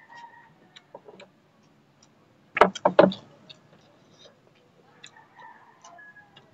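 Close-up eating sounds: chewing and small wet mouth clicks, with three loud crunches about two and a half to three seconds in.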